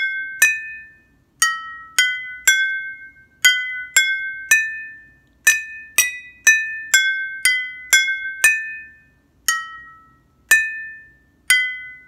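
A metal spoon tapping a row of drinking glasses filled with different amounts of water, playing a simple tune. Each strike rings out as a clear glassy note, its pitch set by the glass's water level, at about two notes a second with short pauses between phrases.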